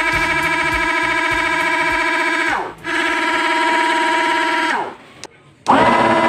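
Homemade 12 V dual DC-motor air pump running with a steady high whine. About two and a half seconds in it winds down and starts straight up again, then near five seconds it winds down to a stop and spins back up shortly before the end.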